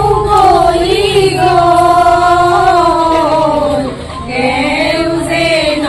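A group of women singing a song together in unison, unaccompanied, with long held notes and a brief breath pause about four seconds in.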